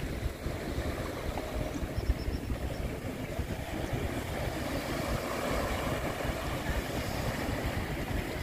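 Small waves washing onto a sandy beach, with wind buffeting the microphone in an uneven low rumble.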